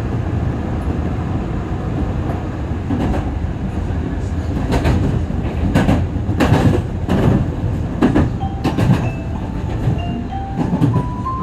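Osaka Metro Midosuji Line train running on elevated track, heard from the front of the train: a steady rumble of wheels on rail, with sharp clacks from about three seconds in as the wheels cross the points. A faint whine steps up in pitch near the end.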